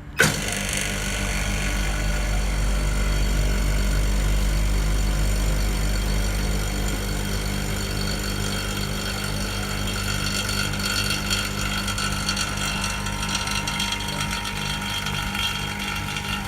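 Vacuum pump of a screen-laminating machine switching on and running, a steady mechanical hum with a regular pulse. It is pumping the air out of the laminating chamber before the touch glass is pressed onto the display.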